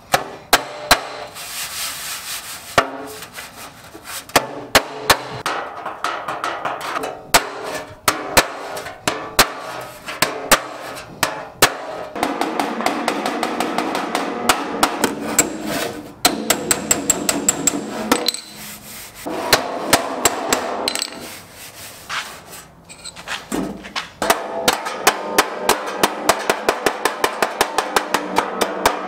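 Hammer blows on the sheet-steel bed of a vintage Radio Flyer wagon, working the metal back into shape: irregular sharp strikes, then a quick even run of taps near the end.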